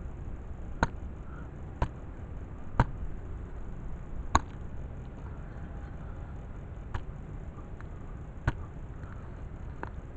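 A digging tool stabbing into grassy turf to cut out a plug over a metal-detector target: about seven sharp chops, roughly one a second, with the loudest a little under three and four and a half seconds in.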